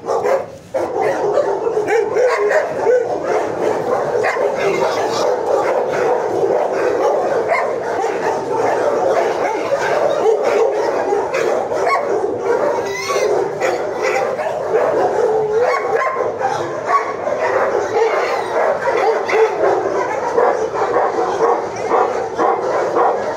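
Many dogs in a shelter kennel block barking, yipping and whining at once, a continuous overlapping din with no pauses.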